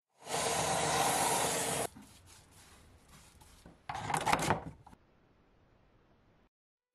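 A hand tool working wood: a steady scraping noise for nearly two seconds that cuts off sharply, a few faint ticks, then a shorter, rougher scrape about four seconds in.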